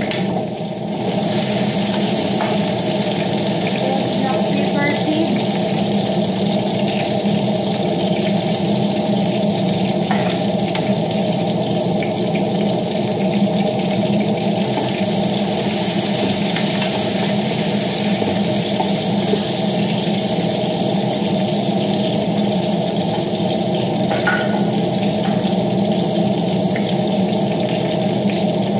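Kitchen range hood exhaust fan running: a steady rushing noise with a motor hum, plus a few faint clinks of a spoon on the pot.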